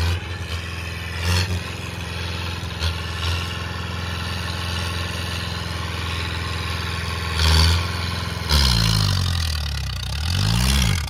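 Massey Ferguson 2606 tractor's diesel engine labouring under heavy load as it drags a harrow through soil, pouring black smoke. Its note holds steady for most of the time, then swings up and down in pitch over the last few seconds as the revs rise and fall.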